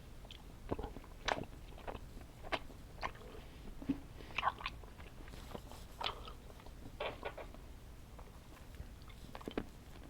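Close-up mouth sounds of someone chewing sticky, chewy candy: irregular wet smacks and clicks, one or two a second.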